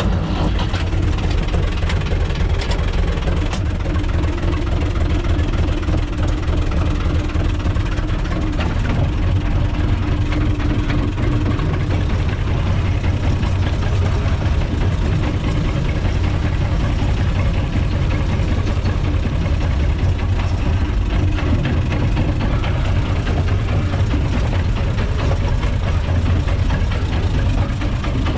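Diesel engine of a UTB 445 4x4 tractor running steadily, heard from inside the cab.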